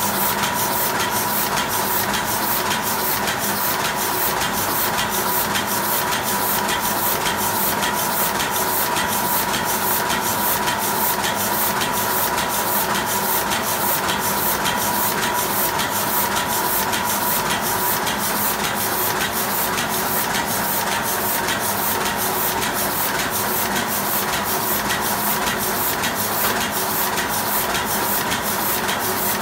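Heidelberg GTO 46 offset printing press running and printing sheets. It makes a steady mechanical hum and whine with a regular clatter about twice a second.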